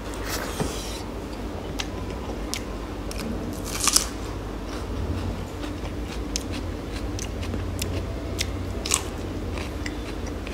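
A person chewing and biting food close to the microphone: wet mouth clicks and small crunches, with a louder crunch about four seconds in and again near nine seconds.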